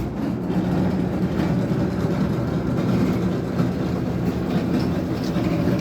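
GE clothes dryer starting abruptly and running with a loud, steady low rumble, a fault noise put down to the blower wheel. The owner says it sounds like the tension (idler) pulley but is not sure.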